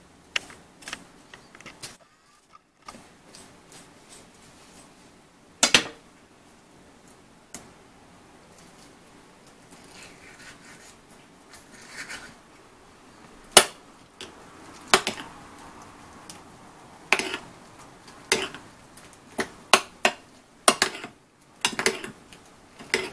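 Metal spoon clinking against a glass bowl: scattered sharp clinks while avocado is scooped into chunky salsa, then clinks coming more often in the last few seconds as the salsa is stirred.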